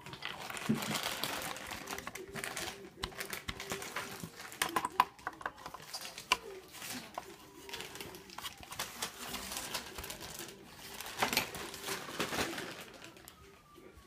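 Hands working a metal laptop hard-drive caddy: a screwdriver turning the small caddy screws on the 2.5-inch drive, then the perforated metal caddy scraping as it slides into the laptop's drive bay and the plastic cover clicking shut. The result is a run of irregular clicks, taps and scrapes of metal on metal and plastic.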